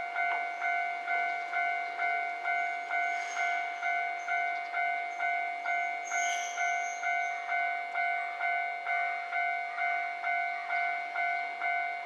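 Electronic warning bell of a Japanese level crossing (Kyosan-made, with its newer sound source) ringing steadily, about two strikes a second, each fading before the next, warning that a train is coming. A train passes, with a faint high squeal about six seconds in.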